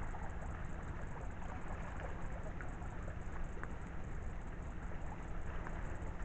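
Steady outdoor background noise with a low rumble of wind on the microphone and a few faint ticks.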